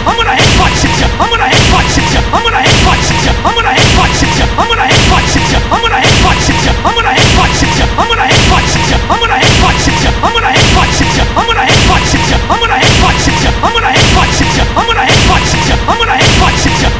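Cartoon fight sound effects on a tight loop: a smacking hit from a headbutt repeating about twice a second, over music.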